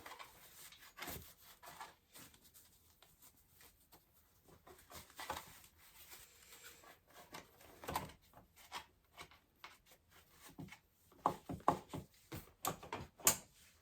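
Soft rubbing and scattered small clicks as a chair's armrest cushion is fitted and screwed on with an Allen wrench, with a cluster of sharper clicks near the end.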